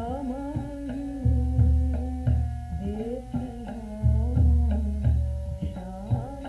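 Devotional Hindi bhajan music: a hand drum plays deep strokes in a repeating pattern under a sustained melody line.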